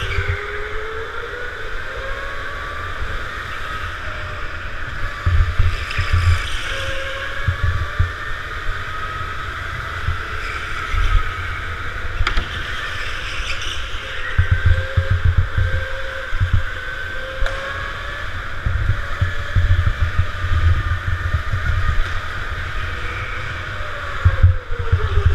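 Go-kart motor heard from on board, a whine that rises and falls in pitch as the kart speeds up and slows through the corners, over low rumbling thumps throughout.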